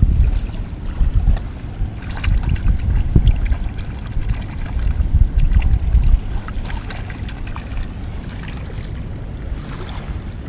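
Wind rumbling on the microphone, easing after about six seconds, over surf at the shoreline. Through it come light crinkles and clicks as clear plastic bags of squid are handled.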